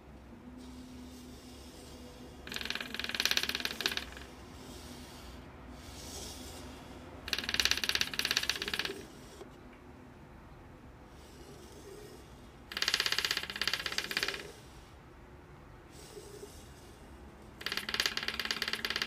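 A phone buzzing in four rattling bursts of about a second and a half, repeating roughly every five seconds.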